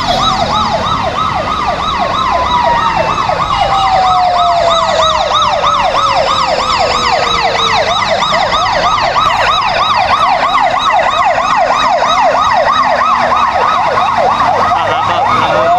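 Electronic sirens of a motorcade's escort vehicles: one in a fast yelp, about three to four up-down sweeps a second, while a second siren slides slowly down in pitch over several seconds, and another begins to rise near the end.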